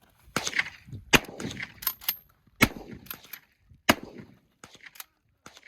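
A rapid, irregular series of sharp 12 gauge shotgun blasts, about a dozen in under six seconds, each with a short echoing tail. The later ones are fainter.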